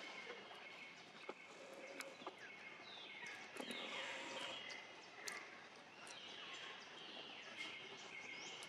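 Faint forest ambience: a steady high-pitched drone with repeated falling wildlife calls and scattered small clicks.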